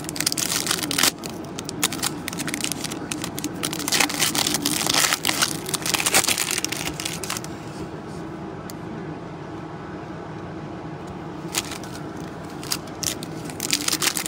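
Trading cards and foil pack wrappers being handled: dense crinkling, rustling and sliding scrapes for about the first seven seconds, a quieter spell, then more handling near the end, over a steady low hum.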